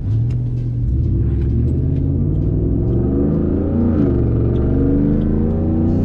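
2018 Ford F-150's 5.0 V8 through a Borla ATAK aftermarket exhaust, accelerating hard, heard from inside the cab. The engine note climbs steadily, drops briefly at an upshift about four seconds in, then climbs again.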